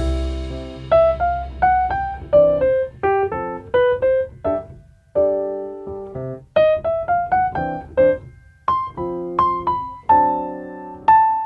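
Outro music on piano: a quick melody of short struck notes, stepping up in runs over chords.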